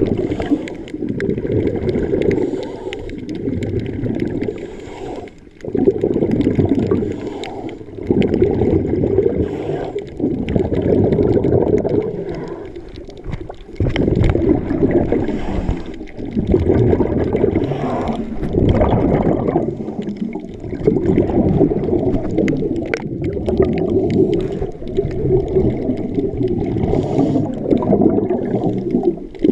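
Muffled underwater water noise heard through a waterproof camera housing moving through shallow water, a low churning rush that swells and eases every two or three seconds.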